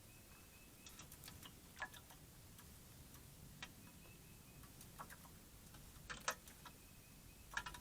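Faint, irregular clicks and taps, a few at a time, with a brief faint high whistle near the start and again about four seconds in.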